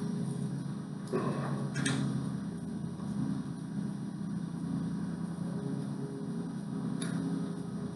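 Steady low background hum, with a few brief scrapes and knocks of parts being handled during bike assembly, about one and two seconds in and again near the end.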